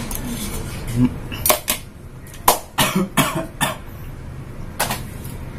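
A man eating a mouthful of rolled omelette from a metal spoon, making short sharp mouth and throat noises, most of them bunched together in the middle.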